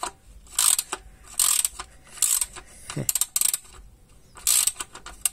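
Ratchet wrench clicking in about five short bursts, roughly one a second, as it is swung back and forth on a car's oil drain plug. The plug is stuck and turning harder than it should.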